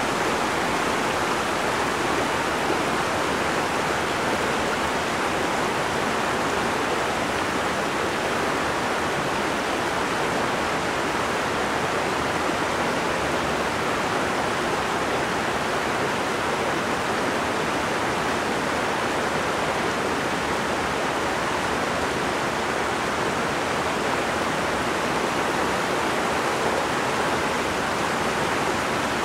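Steady rush of flowing river water, an even unbroken roar that holds at one level throughout.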